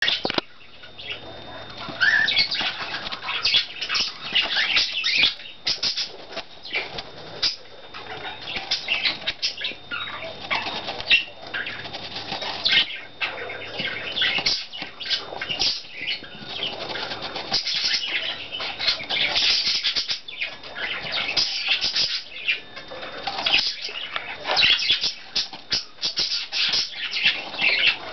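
Budgerigar pecking and gnawing at a slab of styrofoam: a dense, irregular run of scratchy clicks and scrapes that goes on and on.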